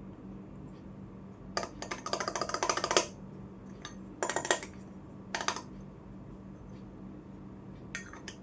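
Miniature toy kitchenware clinking and tapping as it is handled. First a rapid run of small clicks for over a second, then three short clusters of clinks, over a faint steady hum.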